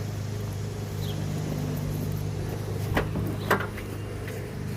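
Car engine idling with a steady low hum, and two sharp knocks about three seconds in, half a second apart.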